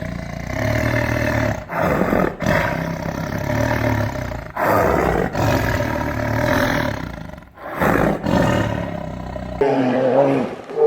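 A large animal roaring and growling in several abruptly cut segments; about a second before the end the sound changes suddenly to a different, wavering pitched sound.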